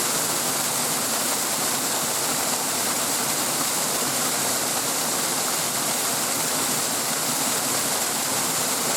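Stream water rushing over a small waterfall: a steady, unbroken hiss that holds at one level.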